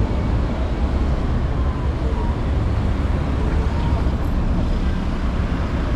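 Urban street ambience: a steady low rumble of road traffic, with faint voices of people nearby.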